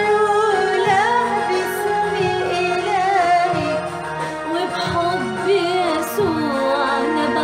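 Arabic Christian hymn sung by women's voices, with ornamented, wavering melodic lines over sustained instrumental accompaniment.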